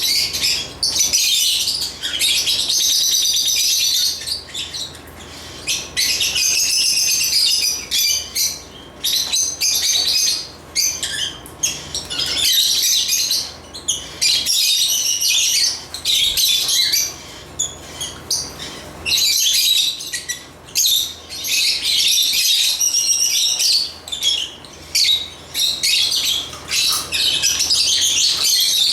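African lovebirds (Agapornis) chirping and chattering, fast high-pitched calls in runs of a second or two with short breaks between.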